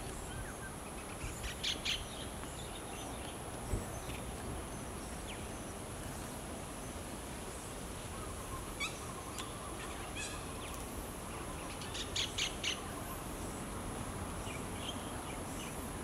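A kingfisher calling in short runs of three or four rapid sharp notes, about two seconds in, again around nine and ten seconds, and once more around twelve seconds, over a steady high-pitched insect drone.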